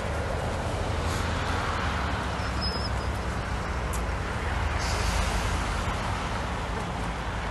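Steady low outdoor rumble, with a few brief rustling noises about a second in and again around four and five seconds in.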